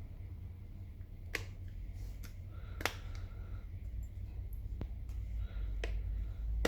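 Small sharp clicks, about five spaced a second or so apart, from tools and parts being handled during iPhone screen-repair reassembly, over a low steady hum.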